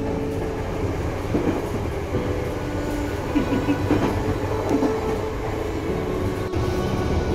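London Underground Bakerloo line 1972 Stock train running, heard from inside the carriage: a steady rail running noise with faint whining tones and a sharp click about six and a half seconds in.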